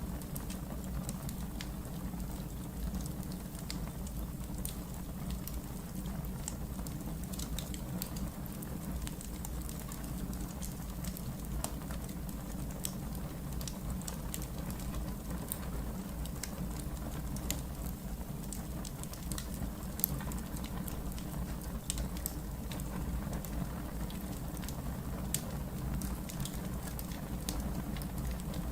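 Wood fire burning in a fireplace, crackling with frequent small irregular pops over a steady low rumble.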